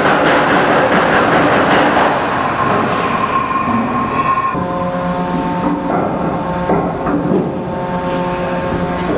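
An aircraft carrier's heavy steel anchor chain runs out over the deck and down the hawse pipe with a loud, continuous clattering rattle that eases off over the first few seconds. About four and a half seconds in, a steady machinery hum of several tones takes over, with a few knocks.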